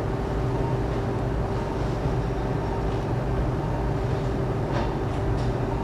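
Steady operating-room equipment noise: a low machine hum with a held tone over a hiss, and a few faint clicks near the end.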